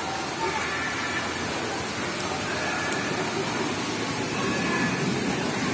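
Steady wash of rushing water with faint, indistinct voices in the background: waterpark ambience.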